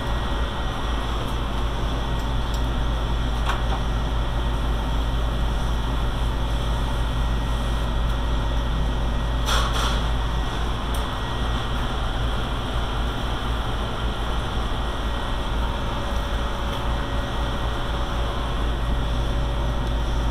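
Steady low machine hum with a faint high whine, broken by a brief click or knock about ten seconds in.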